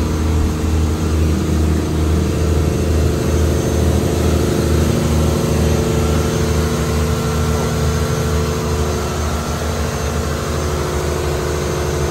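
Engine-room machinery of a longline fishing vessel running, a loud, steady deep drone with a slight pulsing beat.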